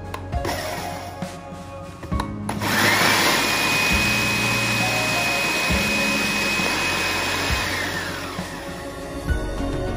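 Electric food processor grinding desiccated coconut into kerisik: the motor starts a few seconds in with a rising whine, runs steadily for about five seconds, then winds down. Background music plays throughout.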